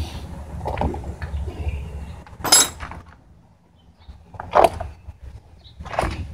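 Metal hand tools clinking as they are handled during the brake job, four separate clinks; the sharpest, about two and a half seconds in, rings briefly.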